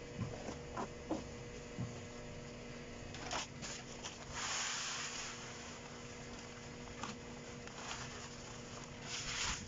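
Hands scraping and rustling through loose, gritty potting soil in a plastic tub, with a few sharp scrapes at the start. Granular cat litter is then poured from a bag onto the soil with a hiss, loudest near the end.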